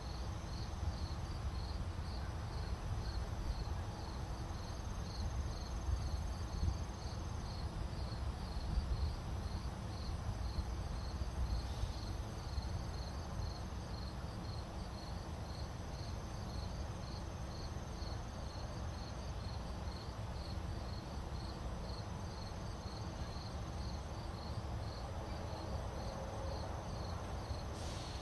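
Crickets chirping steadily in an even rhythm, over a low rumble of wind on the microphone.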